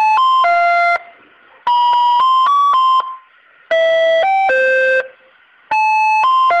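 Electronic ice-cream-van jingle playing in place of a railway level-crossing warning alarm. It runs as short phrases of a few plain chiming notes, each phrase about a second long with a brief gap before the next, repeating about every two seconds.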